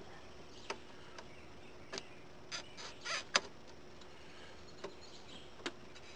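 Scattered small metallic clicks and taps, about half a dozen, the loudest a little past the middle, as pliers work a spring pinch clamp onto a rubber fuel hose at a fuel pump fitting. A faint steady hum lies underneath.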